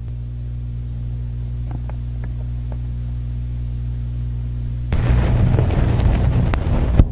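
Steady low hum, with a few faint clicks in the first three seconds; about five seconds in, a louder rough noise with a low rumble sets in over it.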